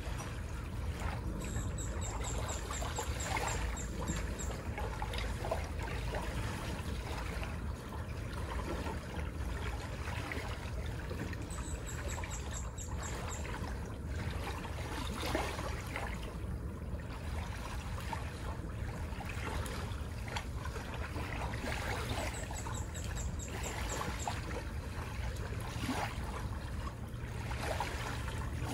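Small waves lapping and trickling at the shore of a beach. A high, rapid string of about ten short chirps comes three times, roughly ten seconds apart.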